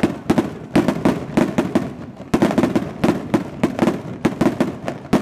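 Fiesta cohetes and firecrackers going off in a rapid, irregular barrage of sharp bangs, several a second in clusters.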